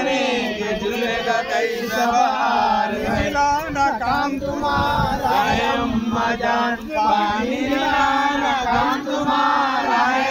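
Voices chanting a Muharram devotional song (marsiya) in Urdu, several singers together in a continuous sung line.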